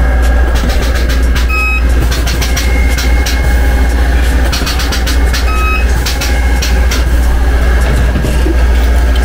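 Inverter resistance spot welder at work on a car body panel: a steady low hum with clusters of sharp clicks as the welds fire, and two short high beeps about four seconds apart.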